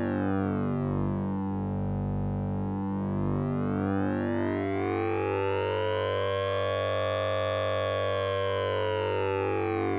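Synthesized sync-and-ring-modulation effect from the Orange Vocoder VST plugin: a steady low drone under a cluster of metallic overtones that slide down, then slowly rise to a peak and begin to fall again, like a slow siren sweep.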